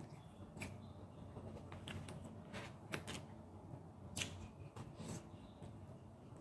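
Faint, close mouth sounds of eating by hand: chewing, with irregular soft wet clicks and smacks, a few in the space of a second or two, as she eats rice and scrambled egg.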